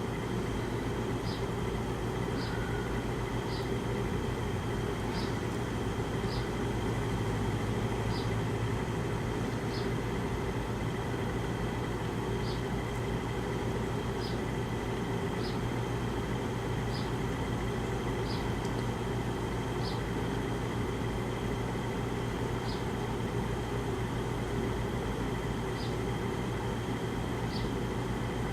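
Bedroom air conditioner running with a steady hum and faint high ticks about once a second, while failing to cool the room: the temperature keeps climbing even with the unit set to 60 degrees.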